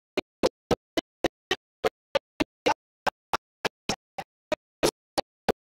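Sound track glitching: the audio breaks into a stream of short stuttering blips, about three or four a second, with dead silence between them, as the recording drops out.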